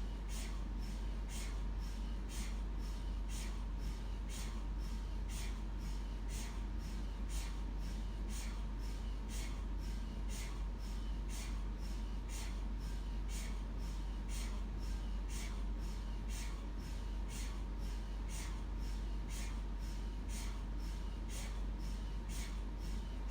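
MRI scanner running a scan sequence: the gradient coils knock in a steady, even rhythm of about two knocks a second over a constant deep hum.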